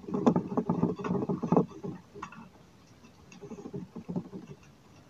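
Rapid scraping and clicking of a screwdriver forcing a small substitute screw into a laptop case post, dense at first, then quieter scrapes about three seconds in. The screw's thread pitch doesn't match, so it goes in tight.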